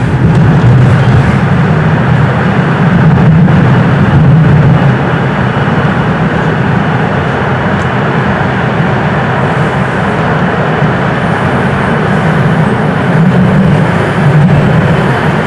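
Toronto subway train running steadily at speed, heard from inside the car: a loud, even rumble of wheels on rail and car body noise.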